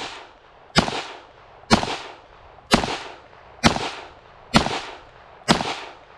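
Smith & Wesson M&P 2.0 .22 Magnum semi-automatic pistol firing six shots at a steady pace of about one a second, each sharp report followed by a short echo.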